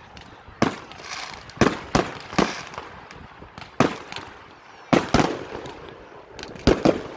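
Fireworks bursting: a string of about nine sharp bangs at uneven intervals, some in quick pairs, each trailing off into a short fading rumble.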